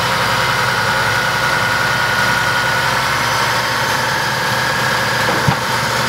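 Caterpillar D6H crawler bulldozer's diesel engine running loud and steady under load while the blade is worked hydraulically, with a thin high whine through the first half. A single short knock comes about five and a half seconds in.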